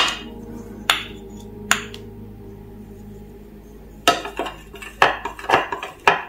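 Pink plastic spoon knocking against the sides of a clear bowl while stirring food colouring into a clear liquid slime base. A few separate clicks in the first two seconds, then a quick run of clinks in the last two seconds.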